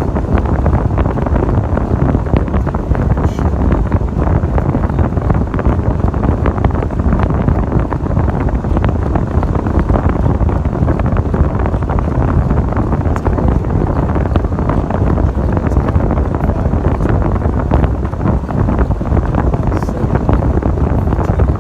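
1996 Ford Bronco driving through snow, a steady low rumble of engine and tyres, with wind buffeting the microphone.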